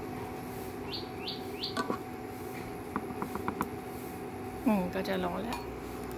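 Portable induction cooktop humming steadily under a pan of heating oil. A spatula clicks against the nonstick frying pan a few times about three seconds in, a bird chirps three quick times about a second in, and a voice speaks briefly near the end.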